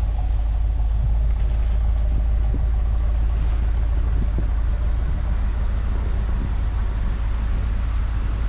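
Pickup truck driving on snowy roads: a steady low rumble of engine and road noise.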